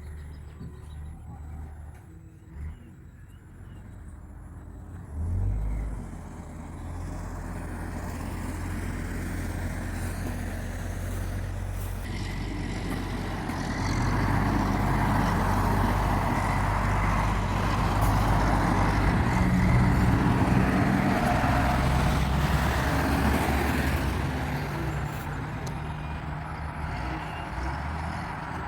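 A motor vehicle's engine running, with a steady low hum and a wash of road or machine noise. There is a short thump about five seconds in, and the sound grows louder after that, loudest in the middle before easing a little near the end.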